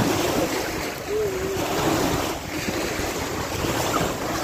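Wind buffeting the microphone over the wash of seawater around an outrigger boat, with a faint voice in the background about a second in.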